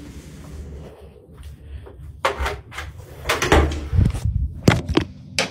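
A run of sharp knocks and clatters of things being moved about, several in the second half, over a low rumble from a handheld phone being handled.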